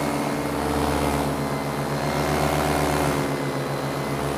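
Paramotor in flight: its two-stroke engine and propeller running at a steady cruise throttle, a constant pitched drone with an even pulsing beat, heard from the pilot's seat.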